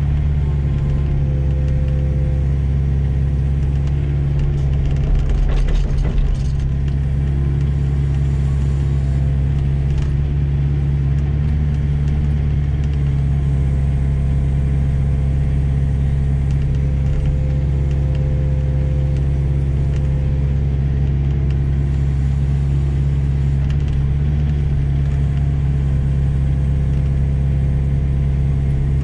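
Heavy machine's diesel engine running steadily at a constant pitch, with a short burst of clattering about five to six seconds in.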